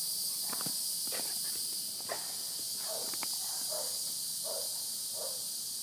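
A puppy running with a toy across wet ground: scattered soft steps and short sounds every half-second or so, over a steady high-pitched hiss.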